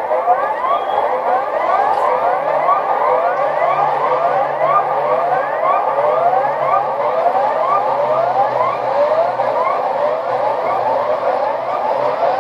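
Chilean emergency alert alarm tone: a rapid, unbroken string of short rising electronic sweeps, overlapping one another, with a faint steady low hum beneath.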